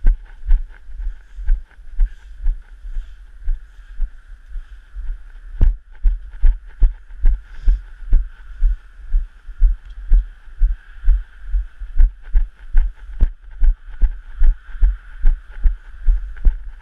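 Walking footsteps carried into a body-worn action camera as dull, regular thuds, a little over two a second at a brisk pace, over a faint steady high-pitched noise.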